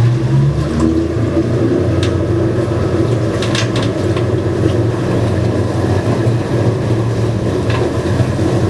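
Whale-watching boat's engine running with a steady low drone, with a few brief sharp clicks about two seconds in, midway and near the end.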